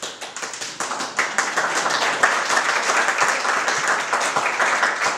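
Audience applauding, many hands clapping, swelling about a second in and holding strong.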